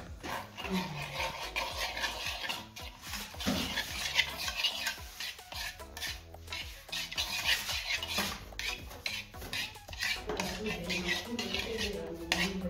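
Metal spoon stirring melting butter in a metal pot, scraping and clinking against the sides and bottom in quick irregular strokes.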